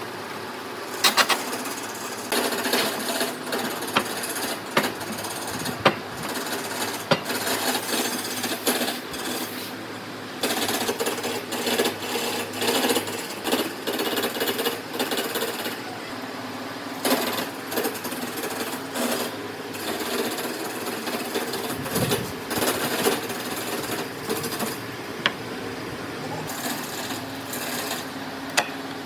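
Woodworking tools working wood: a fast mechanical rattle, broken by many sharp knocks at uneven intervals.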